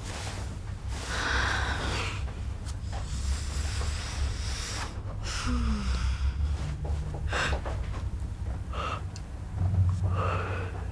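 A person breathing heavily and unevenly: a series of drawn breaths and gasps, one every second or two, over a steady low hum.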